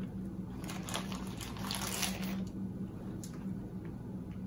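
A person chewing a mouthful of burger, with soft wet mouth sounds and irregular rustles of the burger's paper wrapper. A steady low hum runs underneath.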